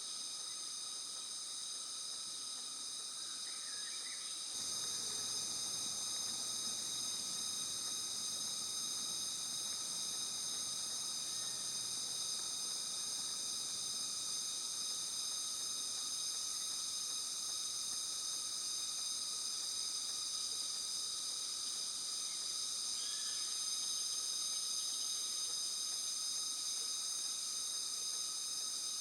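A steady, high-pitched chorus of insects such as cicadas or crickets, several shrill tones held without a break, rising slightly in level about four and a half seconds in.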